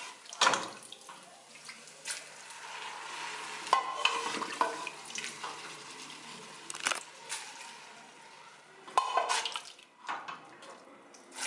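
A small metal cup scooping cooked black beans and their cooking liquid from an aluminium pot: the bean broth sloshes and pours, and the cup clinks and scrapes against the pot's sides in irregular sharp knocks.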